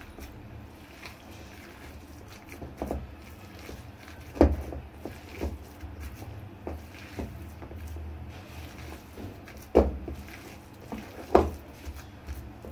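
Hands mixing a thick, coarse chana dal pakora batter in a steel bowl: soft squishing with a few sharp clicks against the bowl, the loudest about four, ten and eleven seconds in.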